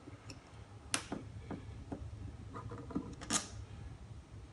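Scattered sharp clicks and light metallic taps of a screwdriver and small screws on the turntable's plate as it is unscrewed, the loudest about a second in and again just past three seconds.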